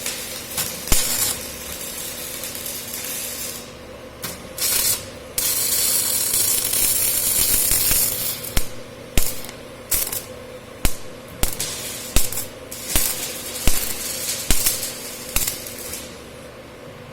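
Metalwork sounds: a steady hiss for a few seconds, then a regular run of sharp metallic taps about every half second, a dozen or so, stopping near the end.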